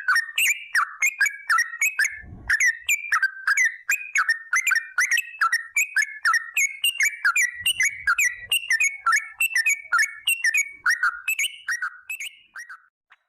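Yellow-vented bulbul (trucuk) singing a long, fast, unbroken run of short whistled notes, about three a second. The song stops shortly before the end.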